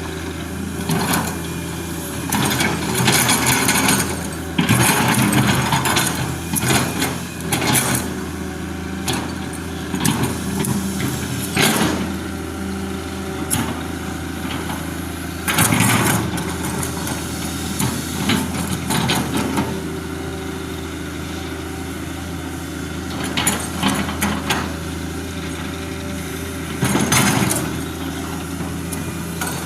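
Small engine running at a steady idle, with repeated louder bursts of a second or so.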